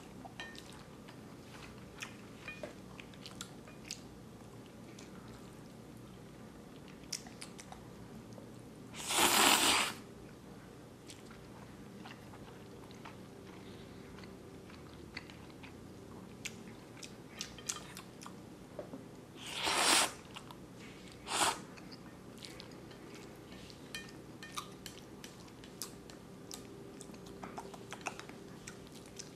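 Close-up eating of instant black bean noodles: wet chewing with many small clicks throughout, and loud slurps of noodles about nine seconds in, around twenty seconds and again just after.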